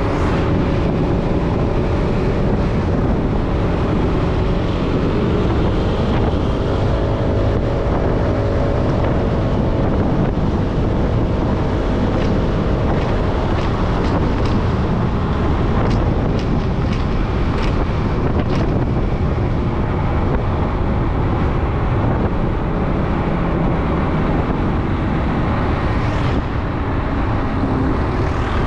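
Wind rushing over the microphone of a camera on a moving vehicle, with steady road noise. A faint wavering tone comes through for a few seconds, and a few light clicks follow midway.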